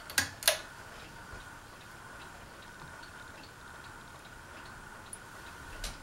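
Pull-chain light switch on a ceiling fan's light kit clicking twice in quick succession, then again near the end as the lights come on. A faint steady high hum and a few light ticks sound in between.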